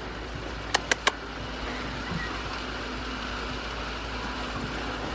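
Steady hiss of rain falling, with three quick sharp clicks about a second in.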